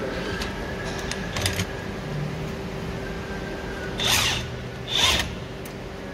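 Hand ratchet turning a socket on a long extension to tighten the bolt of a coil-spring compressor clamp: two short bursts of rapid ratchet clicking about four and five seconds in, with a few lighter metal clicks earlier, over a steady background hum.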